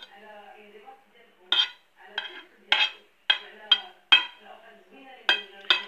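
Metal spoon clinking against a ceramic plate while mixing a rice salad, about eight sharp clinks at uneven intervals.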